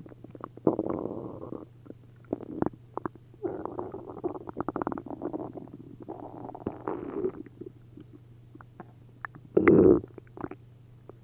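Human stomach and intestines gurgling and bubbling with liquid in several irregular bouts, with quick popping clicks and a short, louder gurgle near the end. An upset stomach after drinking a liter each of milk and prune juice.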